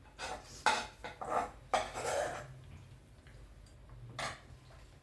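Eating utensils clinking and scraping on dishware during a meal: about five quick knocks and scrapes in the first two and a half seconds, then one more a little after four seconds.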